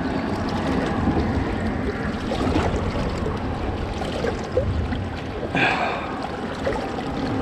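Water washing and lapping against jetty rocks, with wind rumbling on the microphone. A brief, louder rush of water comes about five and a half seconds in.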